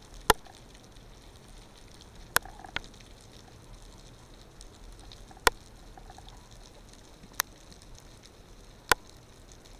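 Underwater sound through a camera housing mounted on a speargun: a faint steady hiss broken by six sharp clicks at uneven gaps of about one to three seconds, two of them close together, the first the loudest.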